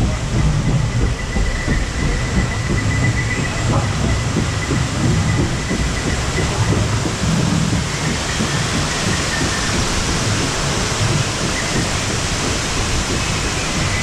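Rushing river water churning around a round rapids-ride raft, with a heavy low rumble and a steady high whine through the first half. The hiss of whitewater grows stronger in the second half.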